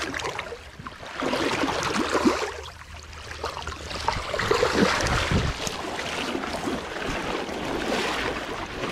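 Shallow stream water splashing and sloshing in irregular surges as a landing net and hands are worked through it, over the steady rush of the current.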